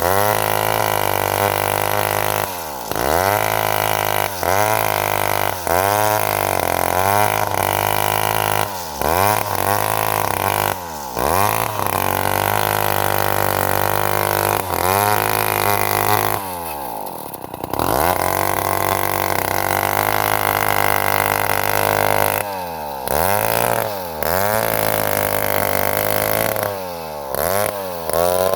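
Two-stroke chainsaw engine running at high revs, its pitch dropping and climbing back again more than a dozen times, about every one to two seconds, with a longer dip near the middle.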